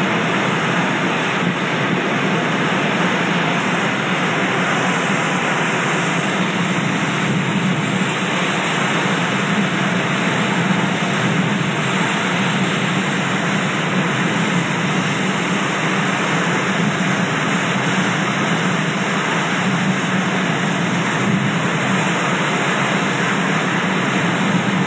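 Steady, loud roar of storm wind and driving rain, unbroken throughout.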